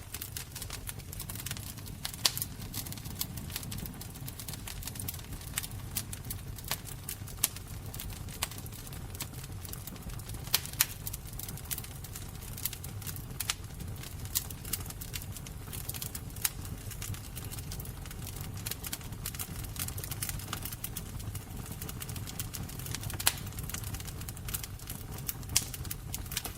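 Fire crackling: irregular sharp pops and snaps over a steady low rumble of the flames.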